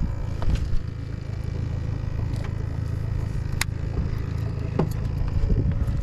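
Boat motor running steadily: a low rumble with an even hum, broken by a few sharp clicks.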